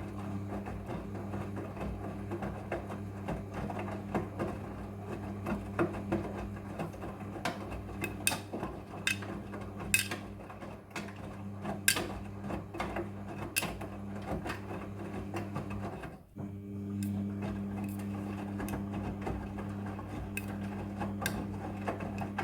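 Front-loading washing machine running, its motor humming steadily while the drum turns, with irregular clicks and knocks from the tumbling load. The motor cuts out for a moment about sixteen seconds in, then starts again.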